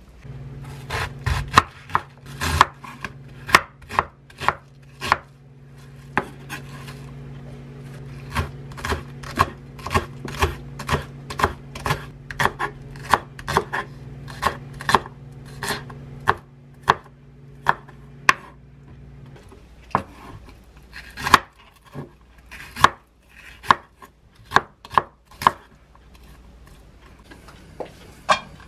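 Kitchen knife chopping green onions on a wooden cutting board: a long run of sharp, even knocks, about two a second, growing sparser later on. A steady low hum lies under the chopping and stops about two-thirds of the way through.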